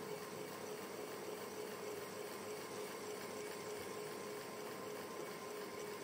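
Ceiling fan running steadily: an even rush of moving air with a constant hum under it.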